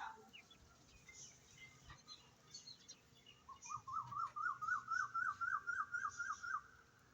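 Bird chirping: scattered short high chirps, then a quick run of about a dozen rising notes, about four a second, from roughly three and a half to six and a half seconds in.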